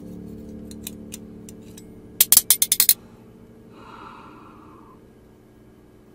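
Low, sustained drone of background music that slowly fades, broken about two seconds in by a quick run of seven or eight sharp clicks, the loudest sound; a breathy, gasp-like hiss follows about a second later.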